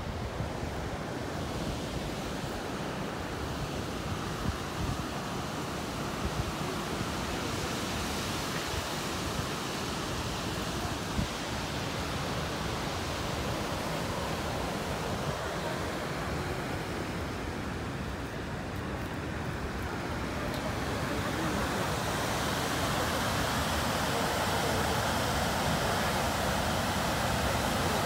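Steady rushing noise of wind and open water, giving way over the last several seconds to the louder, steady rush of a waterfall in full flow after heavy rain.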